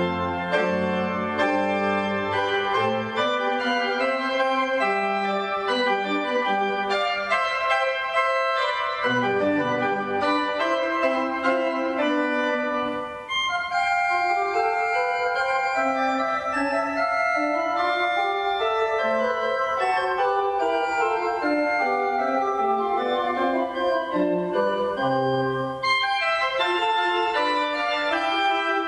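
Organ music: sustained chords with a slowly moving melody over held bass notes.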